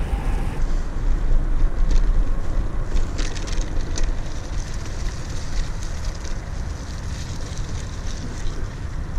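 Wind buffeting the microphone of a bike-mounted camera while riding, over a steady rolling rumble from the bicycle's tyres on the trail, with a few light clicks.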